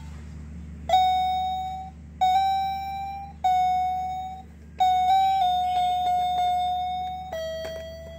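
Pink Hello Kitty toy electronic keyboard played one key at a time: six single held notes, each sounding about a second before the next starts, most near the same pitch and the last one a little lower.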